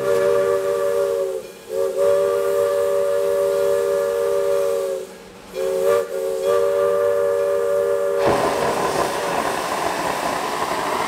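Narrow-gauge steam locomotive's whistle, a chord of several notes, blown in a series of long blasts with short breaks between them. About eight seconds in, the whistle stops and a loud hiss of steam venting from the locomotive takes over.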